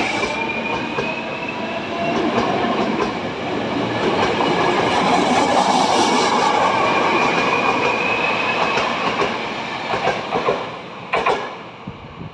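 Hankyu 1000 series electric train accelerating away, its motor whine slowly rising in pitch over the rumble of the wheels. Near the end a few sharp wheel clacks over rail joints come as the last cars pass, and then the sound falls away.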